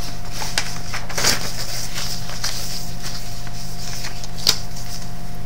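Steady low electrical hum with a faint steady high tone over it, broken by a few faint clicks and a soft rustle about a second in.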